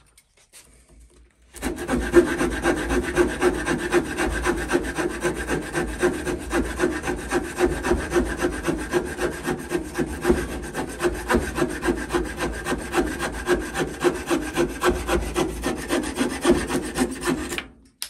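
Folding saw blade of a Victorinox pocketknife cutting through a dry branch held in a vise: quick, steady back-and-forth strokes of wood rasping, starting about a second and a half in and stopping just before the end as the cut finishes.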